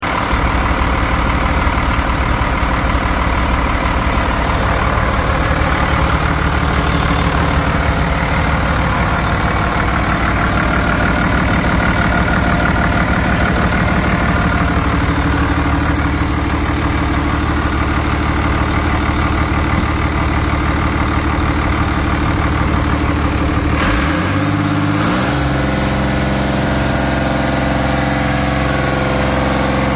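1999 Cummins ISB 5.9-litre inline-six turbodiesel running at idle, with a steady diesel clatter. At about 24 seconds the engine speed rises and then holds at a higher steady speed.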